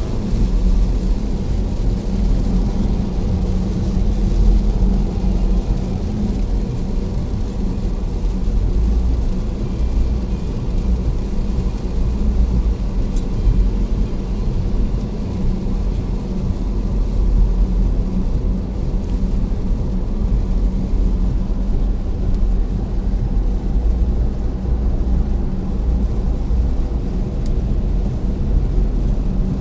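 Steady low road and tyre rumble heard inside the cabin of a Tesla Model S Plaid, an electric car with no engine note, cruising at highway speed on a rain-soaked road.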